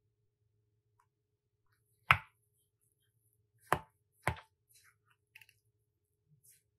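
Wooden spoon knocking sharply against a glass mixing bowl three times, about two, three and a half and four seconds in, the first the loudest. Softer scrapes and clicks follow as the spoon stirs crumbled tofu with pancake mix powder.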